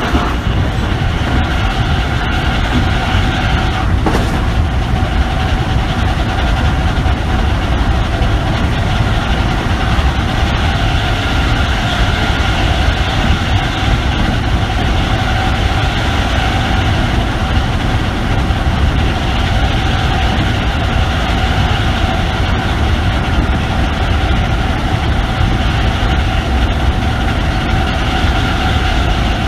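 Inside the carriage of an MTR East Rail Line MLR (Metro-Cammell) electric multiple unit running along the line: a loud, steady rumble of wheels on track with a strong, steady traction motor whine that neither rises nor falls.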